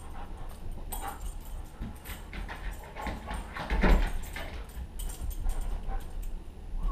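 Wolfdog moving about with a toy in its mouth: scattered light clicks and rustles, with a dull thump about four seconds in.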